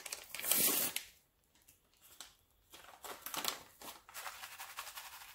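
A Lipton onion soup mix packet crinkling and rustling as it is torn open and handled. The crackling is loudest in the first second, stops for a moment, then comes back in short rustles.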